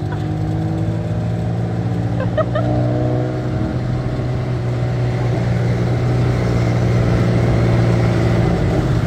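Tuk-tuk engine running steadily under way, a low drone with road noise that grows slightly louder toward the end.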